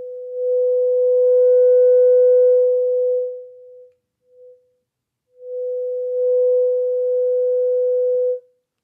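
Signal generator's steady mid-pitched sine test tone played through a NAD 3020i amplifier into speakers, with faint higher overtones. It sounds for about four seconds, drops out with one short blip, then returns and cuts off near the end. The amplifier is reproducing it cleanly with no hiss, "much better" now that the bodge is out of circuit.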